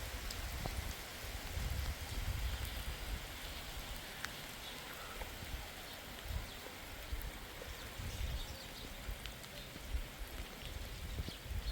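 Steady rain falling: an even hiss with many small drop ticks, over a low, uneven rumble.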